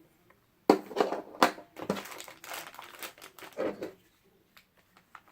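Plastic toy packaging crinkling and crackling as it is handled and opened by hand. It starts sharply about three-quarters of a second in, goes on in irregular crackles, and dies down after about four seconds.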